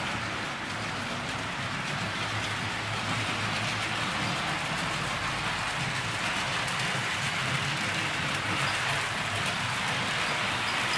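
HO-scale model train running on the layout track: a steady rushing rumble of the model C57 steam locomotive's wheels and motor and its passenger coaches' wheels on the rails, growing a little louder as the train comes past, with faint clicks at the rail joints.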